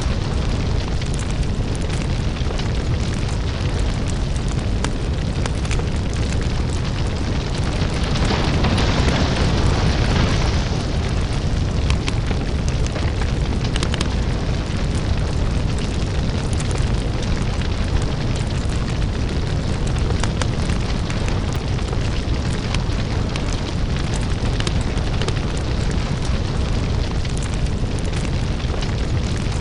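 Crackling lava-fire ambience: a deep, steady rumble with dense small crackles and pops over it, swelling into a louder hiss for a few seconds about a third of the way in.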